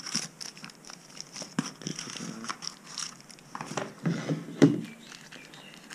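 Drone accessories and their plastic packaging being handled during an unboxing: scattered clicks and short rustles, with a sharper knock about four and a half seconds in.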